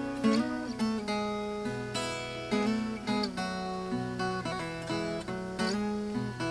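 Viola caipira playing an instrumental melody of quick plucked notes over a steady bass line.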